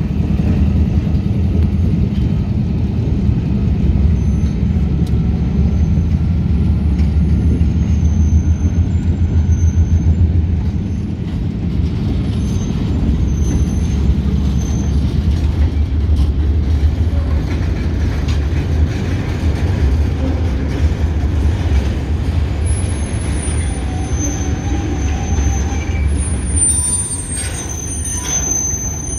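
Freight train with GE B40-8 diesel locomotives passing close by: a steady, heavy low diesel rumble and rolling wheels, strongest in the first ten seconds or so, as the towed GP8 units roll past with their engines not running. Faint high wheel squeal creeps in near the end.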